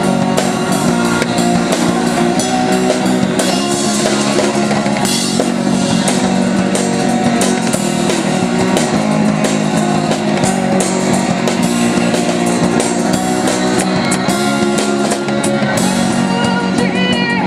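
Live rock band playing: drum kit and electric guitar over a steady beat, loud and continuous.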